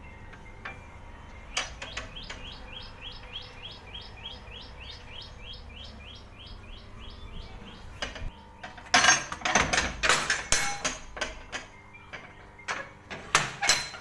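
A bird chirps in a fast, even series, about four or five chirps a second, for several seconds. From about nine seconds in, loud metal clanks and rattles come from a metal door's sliding bolt being worked.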